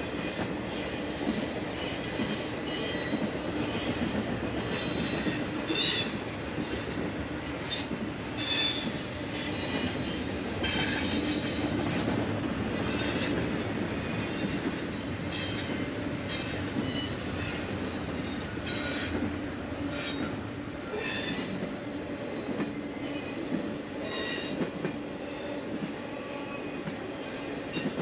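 Long double-stack intermodal freight train rolling past with a steady rumble, its wheels giving off repeated high-pitched squeals that come and go throughout.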